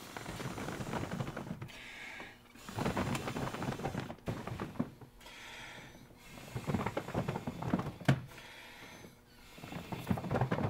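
Air sponsons of a folding kayak's hull being filled by mouth through an inflation hose: several long blows of a second or two each, with short pauses between for breath.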